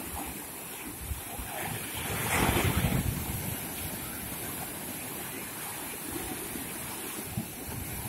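Waves of a rough sea breaking and washing onto the shore, with wind buffeting the microphone. The surf swells louder about two to three seconds in as a bigger wave breaks.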